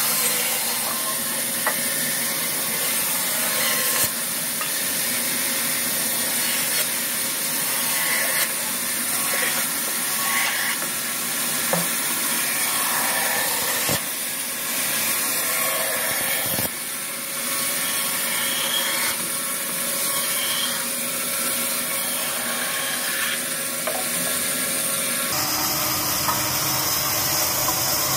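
Bandsaw running and cutting along the edge of a wooden cricket bat blank: a steady hiss of the blade through the wood, with the sound changing abruptly a few times.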